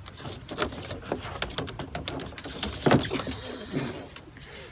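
Irregular clicks and scrapes of a dog's claws on a plastic playground slide, with one louder knock about three seconds in.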